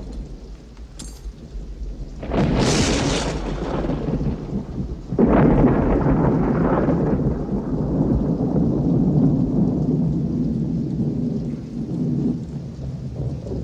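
Thunderstorm with heavy rain. A thunderclap breaks about two seconds in, a louder one follows about five seconds in, and long low rumbling runs on under the steady rain.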